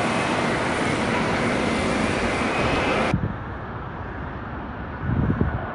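Airbus A380 jet engines roaring during a takeoff climb-out. About three seconds in, the roar cuts off abruptly and is replaced by a quieter, duller rumble of an A380 on landing approach, swelling briefly near the end.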